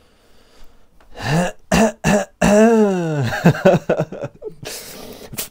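A man's voice making short non-speech vocal sounds: quick clicks and bursts, one longer pitched sound that rises and falls about halfway through, and a breathy hiss near the end.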